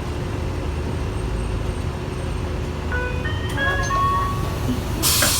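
2007 Hino Blue Ribbon city bus idling with a steady low diesel rumble while its door warning chime plays a short run of school-bell chime notes about three seconds in. Just after the notes, about five seconds in, comes a loud hiss of compressed air from the pneumatic door mechanism.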